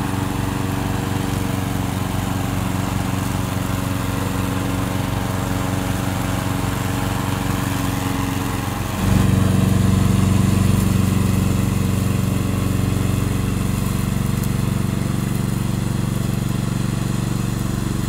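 Gasoline engine of a tracked remote-control lawn mower running steadily while the mower cuts tall grass. About halfway through the sound gets louder.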